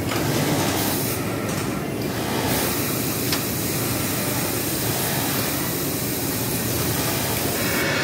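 Juki MF-7923D cylinder-bed coverstitch machine running steadily as it stitches a bottom hem on knit fabric.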